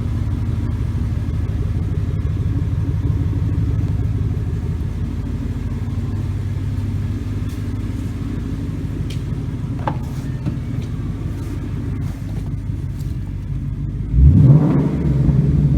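Ford 5.0 Coyote V8 Mustang with the stock midpipe and the mufflers removed (stock resonators in place) idling with a steady, deep exhaust rumble, then a single sharp rev about 14 seconds in that rises and falls back.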